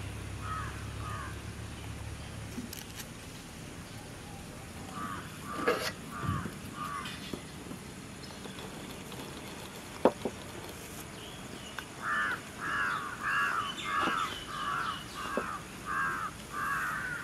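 Crows cawing: a couple of caws early on, a few more partway through, then a steady run of about nine short caws near the end. A single sharp knock about ten seconds in.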